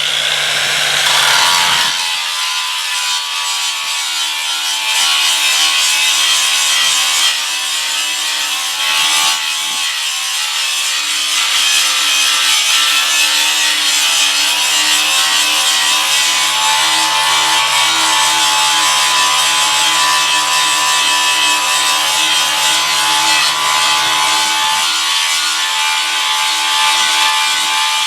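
An electric power tool running steadily on the work, with a sharp hiss and a few held whining tones.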